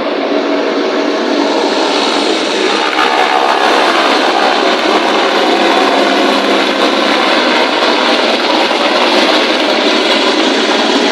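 Helicopter running close by: a loud steady turbine and rotor noise with a few held tones, getting louder and brighter about three seconds in.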